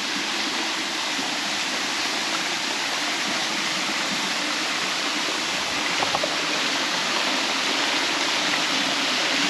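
Creek water rushing steadily over rocks, an even wash of sound with a few faint clicks about six seconds in.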